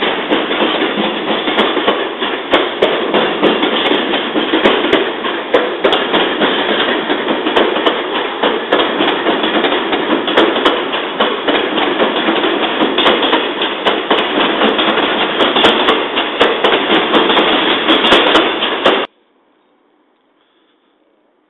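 Electric commuter train running alongside a station platform: a loud, dense rattle and clatter of wheels and bodywork. It cuts off abruptly near the end.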